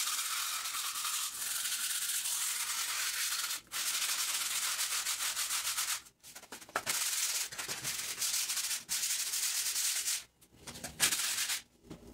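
Sandpaper rubbed back and forth over a plastered wall, scraping off leftover wallpaper and grease, in spells of a few seconds with short pauses between them.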